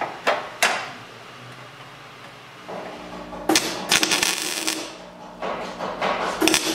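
Two sharp metal knocks as a steel repair patch is tapped into place in a car frame rail, then a MIG welder crackling in two short runs, the first starting about three seconds in and the second near the end, as the patch is welded on.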